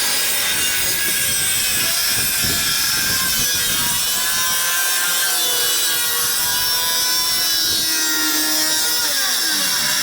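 Power saw cutting through a wooden floor panel. Its motor pitch wavers under load and falls away at the very end as the saw winds down.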